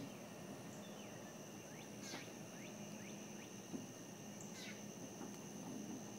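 Outdoor summer ambience: a steady high insect trill, with a bird giving short downward-sliding chirps, several in a row about half a second apart.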